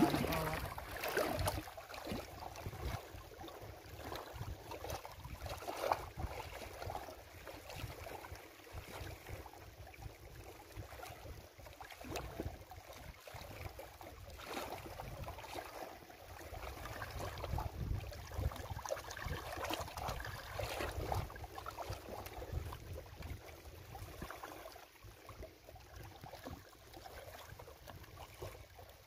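Small waves lapping and splashing against a rocky lake shore, with wind rumbling on the microphone.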